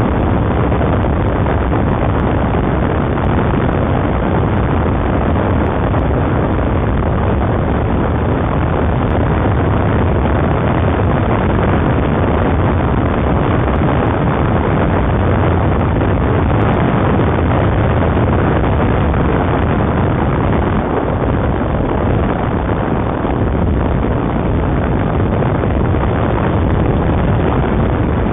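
Steady, loud rush of wind and road noise on the microphone of a camera mounted on a moving bike, with a low rumble underneath.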